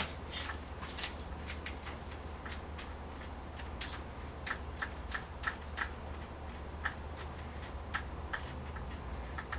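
Small metallic clicks and clinks at irregular intervals from a drill bit and hardware being handled, over a low steady hum.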